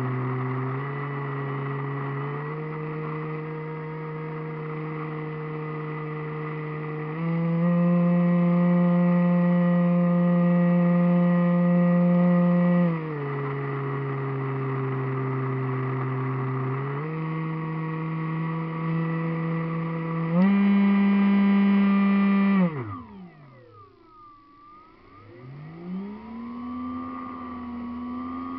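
Model airplane's motor and propeller whining in flight, heard from on board, its pitch stepping up and down as the throttle changes. About three-quarters of the way through the throttle is cut and the whine glides down almost to nothing, then climbs back up as power returns.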